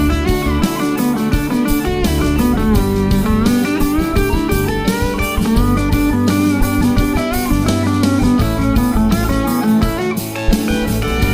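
Background music: a guitar-led, blues-style track with drums keeping a steady beat.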